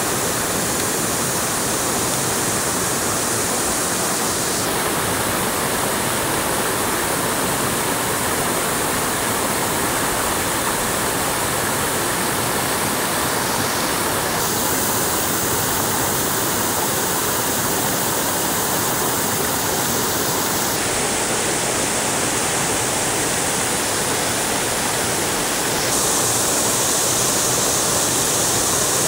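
Steady rushing of water, a dense even noise with no distinct drops or clicks; its tone changes abruptly about four times.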